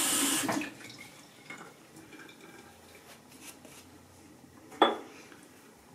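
Tap water running into a bathroom sink cuts off about half a second in. Then come faint small handling sounds, and a single sharp clink about five seconds in.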